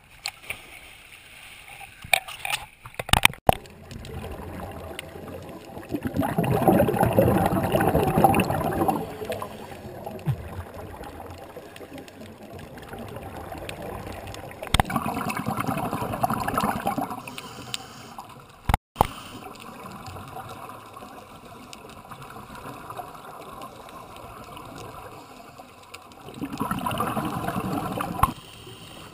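Underwater sound of a scuba dive: exhaled bubbles from a diver's regulator gurgling past in three long bursts of a few seconds each, about a second to ten seconds apart, over a quieter steady water hiss. A few sharp knocks come in the first few seconds as a diver enters the water.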